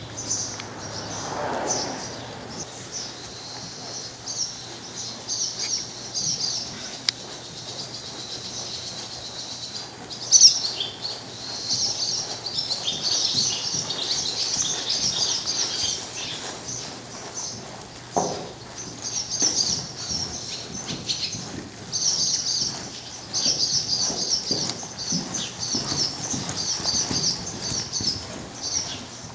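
Small birds chirping in a busy, continuous chatter, with a single sharp knock about ten seconds in.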